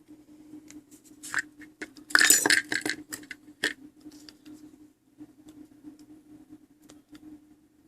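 Light metallic clinks and clicks as the minute hand and other small metal clock parts are handled and picked out, with a busy run of clinks about two to three seconds in. A faint steady hum runs underneath.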